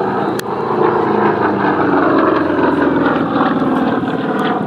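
Single-engine piston propeller aircraft flying an aerobatic pull-up overhead, engine and propeller running continuously with the pitch slowly falling. A brief sharp tick sounds about half a second in.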